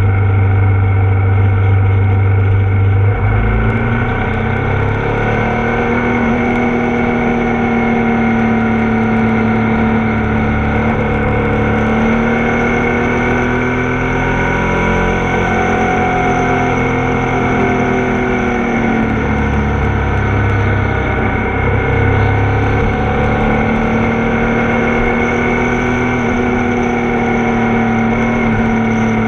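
Ducati Multistrada motorcycle engine heard from on board while riding. Its pitch rises and falls with the throttle, drops back about two-thirds of the way through, then climbs again.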